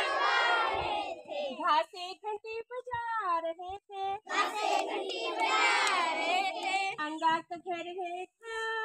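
A group of primary-school children singing a Hindi alphabet song (varnamala geet) together in short phrases. Fuller group phrases alternate with thinner, cleaner sung lines.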